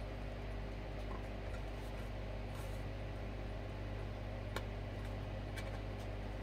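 Steady low hum with a few faint clicks in the second half, small parts being handled.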